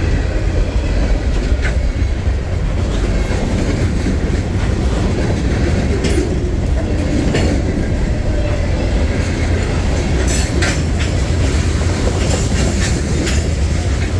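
Freight train cars rolling past: a steady low rumble of wheels on the rails with clickety-clack over the joints. Now and then there is a brief sharp squeak or clank from the running gear.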